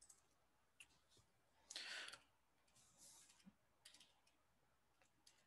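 Near silence, broken by a few faint computer-mouse clicks and a brief soft rustle about two seconds in.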